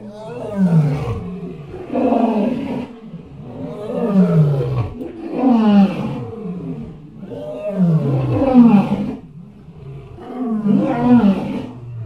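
Elephant or mammoth call sound effect: a series of about six deep roaring calls, roughly every two seconds, each sliding down in pitch.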